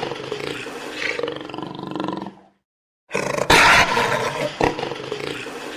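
A tiger roaring: a long roar that fades out about two and a half seconds in, then after a short silence the same roar starts again, loudest at its start. It is a looped roar sound effect.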